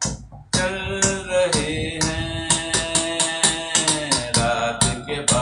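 Instrumental music between sung verses: a held melody over a steady, quick drum beat, resuming after a short break of about half a second at the start.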